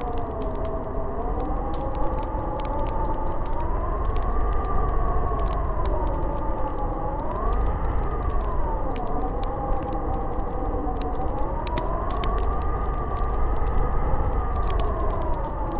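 Snowstorm wind howling, a whistling pitch that slowly swells up and down over a low rumble of gusts, with scattered small ticks.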